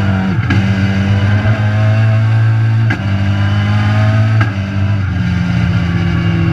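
Rallycross car's engine running hard, heard from inside the stripped cabin, its steady note broken briefly three times by gear changes; near the end the revs ease off slowly.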